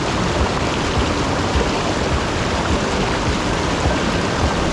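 Mountain stream running, a steady rush of water.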